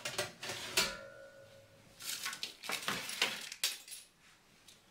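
Metal baking tray clattering and knocking against the oven rack as it is slid into the oven. A short metallic ring follows a loud knock about a second in, and more knocks and scrapes come over the next two seconds.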